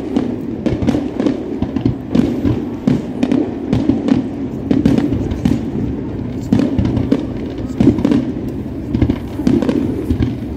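Fireworks display finale: a dense, continuous barrage of aerial shell bursts, many sharp bangs overlapping every second over a steady low rumble.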